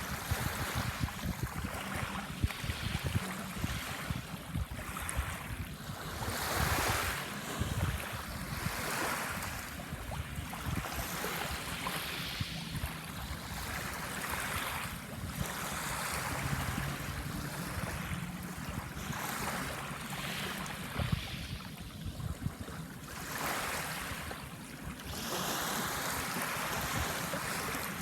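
Small waves breaking and washing up a sandy shore, coming in one surge after another every two to three seconds.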